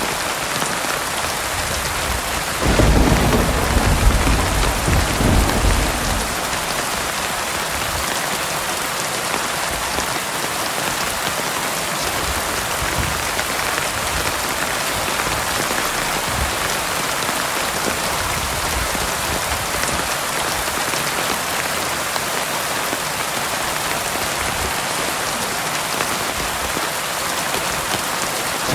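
Heavy rain falling steadily in a dense, even hiss. About three seconds in, a low roll of thunder rumbles for a few seconds.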